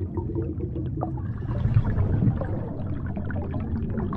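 Magic-spell sound effect: a low rumbling swell scattered with small crackles, building to its loudest about two seconds in and then easing off.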